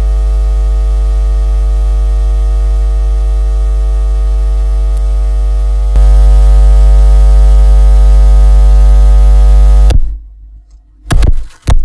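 Loud, heavily distorted electronic buzz with a deep hum under it, held on one steady pitch; it jumps louder about six seconds in and cuts off suddenly a little before the end, followed by two short loud bursts.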